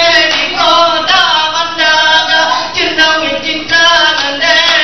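Group singing in unison for an Acehnese seated dance, a chant-like melody that slides between notes, with a few sharp hits in the background.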